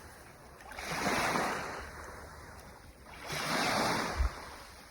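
Sea waves breaking on the shore: two surges of surf that swell and wash back, the second about two and a half seconds after the first.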